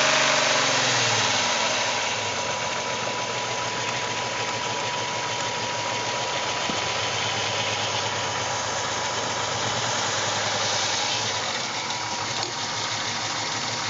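2001 VW Jetta's 12-valve VR6 engine settling from a rev back down to idle in the first second or two, then idling steadily while misfiring on some of its cylinders.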